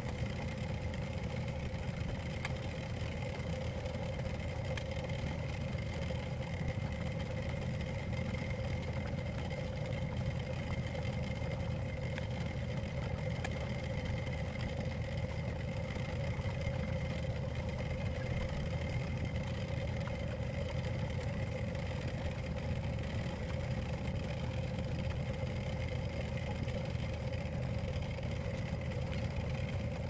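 Julinder Royal XPB75-2008 single-tub washing machine running its wash cycle, its motor humming steadily as it turns the clothes in the water.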